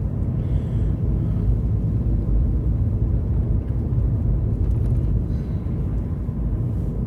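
Steady low rumble of a four-wheel-drive pickup truck's engine and tyres heard from inside the cab while driving on a snowy, icy road.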